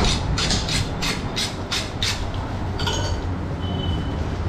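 A butcher's knife being honed on a sharpening steel: quick metal-on-metal scraping strokes, about four or five a second, that stop about two seconds in. A few short metallic clinks follow, over a steady low hum.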